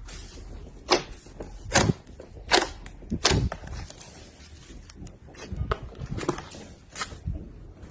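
Slime being handled for ASMR, squeezed and poked by hand, giving a string of sharp pops and clicks, about four close together in the first half and softer ones later.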